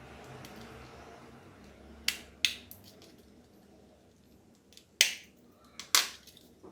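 Sharp clicks and taps of small hard parts being handled, such as a TV remote control being worked on: two quick ones about two seconds in and two louder ones about a second apart near the end.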